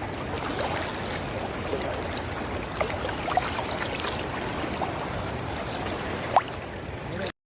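Steady wash of moving water with scattered short chirps and ticks over it, the sharpest about six seconds in; the sound stops abruptly near the end.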